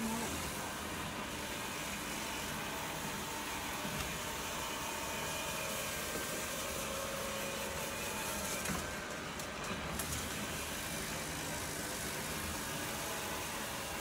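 Shark Ion 750 robot vacuum running steadily, a continuous whir with a faint whine.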